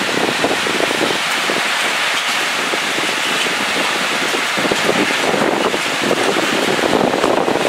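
Heavy rain pouring down in a thunderstorm: a steady, dense patter of drops hitting surfaces.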